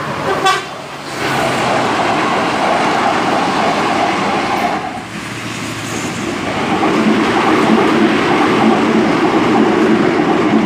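Hyundai Rotem 2000-series electric metro train running past on the track, a steady rush of wheel-and-rail rolling noise. The noise dips about five seconds in, then a second pass follows that is louder and deeper.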